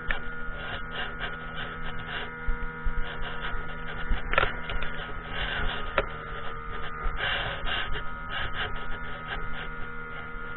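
Outboard motor of a semi-inflatable boat running steadily under way, a hum with several fixed tones, over wind and splashing water noise that comes and goes. A couple of sharp knocks about four and six seconds in.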